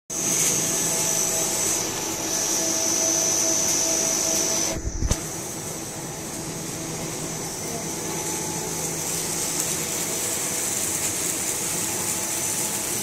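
Breakfast cereal extruder line running: steady machine noise with a high, steady whine. A brief low thump about five seconds in, as the high sound briefly drops out.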